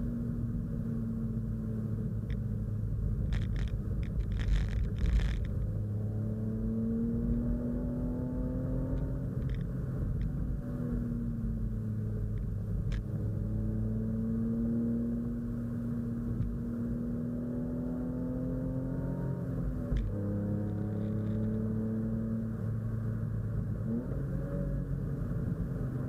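BMW E36 328i's straight-six engine heard from inside the cabin, pulling under load. Its pitch climbs slowly and drops back sharply about three times as the revs fall. A few sharp clicks about three to five seconds in.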